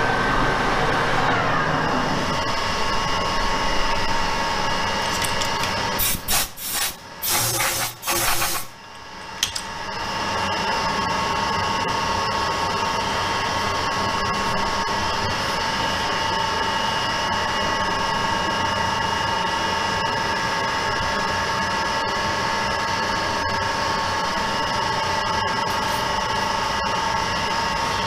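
Metal lathe turning an alloy wheel under a carbide boring-bar cut in its centre bore, the pitch falling over the first two seconds as the spindle slows. A few seconds of loud, uneven noises follow, then a steady machine hum with a high whine.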